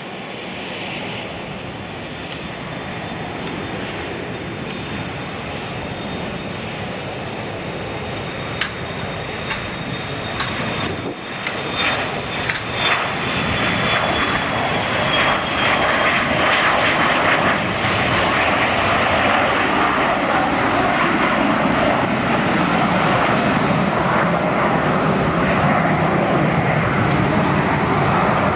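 Embraer Legacy 500 business jet's twin turbofan engines at takeoff power through the takeoff roll and climb-out, a steady jet roar with a thin high whine. The roar grows louder about halfway through as the jet passes.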